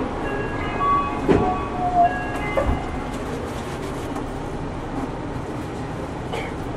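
Cabin running sound of an Okinawa Yui Rail straddle-type monorail train on its rubber tyres: a steady rumble and hiss, with a few knocks in the first three seconds.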